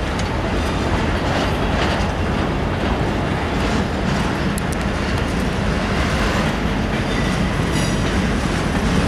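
Union Pacific train cars rolling past, wheels clicking over the rail joints over a steady rumble, with a brief high wheel squeal near the end.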